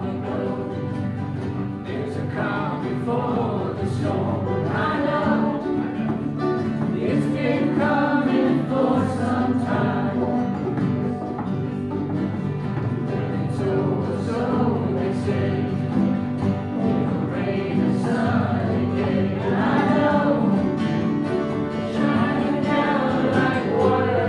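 A group of people singing together to several strummed acoustic guitars.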